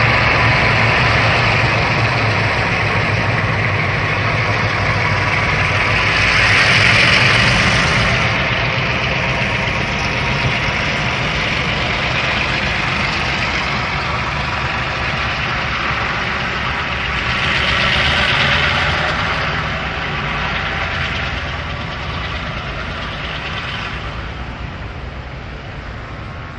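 EMD G22U diesel-electric locomotive's 12-cylinder two-stroke engine being revved, a steady heavy drone that swells louder twice, about 7 and 18 seconds in, then fades near the end.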